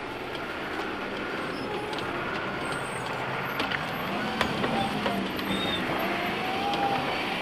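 Armored Humvee driving past, its engine running under a steady rush of tyre and road noise. The engine note rises and falls about halfway through, and a few sharp clicks are heard along the way.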